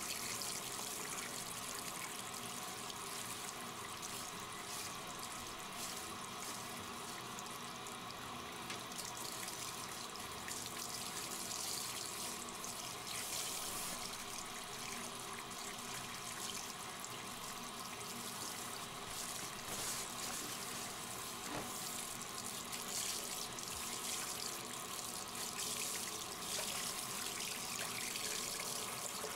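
Water running steadily from a handheld shower sprayer, spraying and splashing onto a wet dog's coat and into the bathtub as the dog is rinsed.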